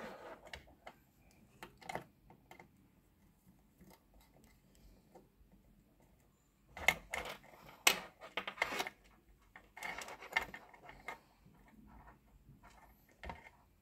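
Handling noise: a screwdriver and wires clicking and rustling at a small speed-controller circuit board's screw terminal block. The clicks are scattered, with two busier spells about seven and ten seconds in.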